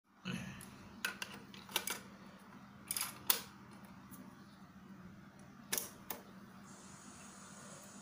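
Plastic clicks and clacks of a Retekess portable cassette player being loaded with a tape and its keys pressed, a few sharp snaps spread over several seconds. About two-thirds of the way through, a steady tape hiss starts as playback begins.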